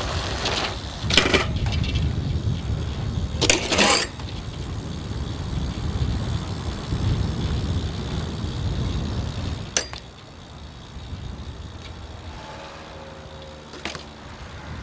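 BMX bike on stone paving: a steady rumble of tyres rolling, with a few sharp metallic clanks and knocks from the bike. The loudest clanks come about a second in and around four seconds in. It turns quieter after about ten seconds, with single clicks near ten and fourteen seconds.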